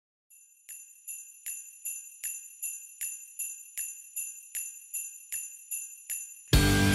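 Jingle bells shaken in a steady beat, about two and a half shakes a second, as a music track opens. About six and a half seconds in, a loud full band comes in.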